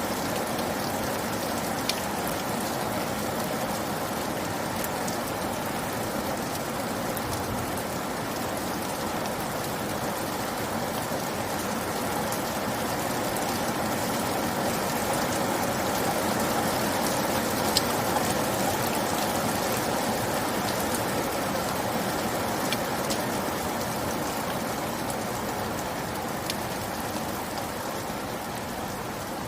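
Steady rain falling, an even hiss of drops with a few sharper single drop ticks.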